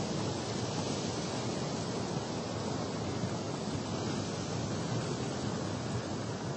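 Sea surf washing against rocks mixed with wind buffeting the microphone: a steady rushing noise with no distinct wave breaks.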